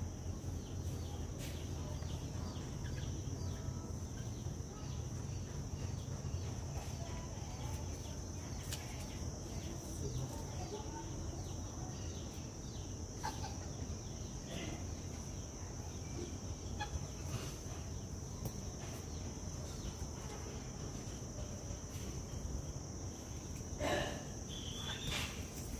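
A steady high-pitched drone over a low rumble, with a few short animal calls scattered through. The loudest call comes near the end.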